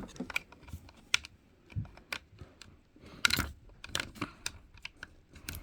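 Lego bricks clicking and tapping as a Lego fire alarm model is handled and reset: scattered small plastic clicks, with a louder cluster about three and a half seconds in.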